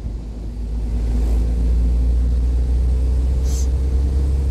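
Willys Jeep's L134 four-cylinder engine pulling hard as the Jeep drives. It gets louder about a second in and holds there with a heavy low rumble, running on a Carter carburettor rebuilt from original parts that pulls strongly.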